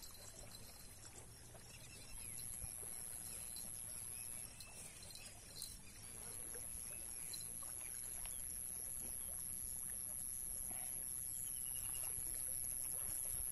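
Rural waterside ambience: the stream's flowing water under a steady high-pitched insect drone that comes in about two seconds in and breaks off briefly near the middle.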